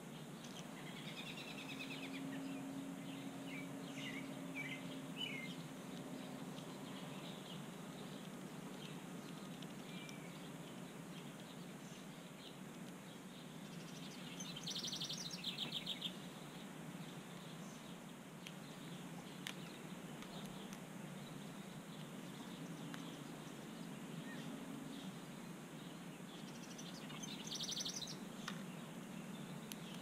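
Backyard songbirds chirping, with two short, fast buzzy calls, one about halfway through and one near the end.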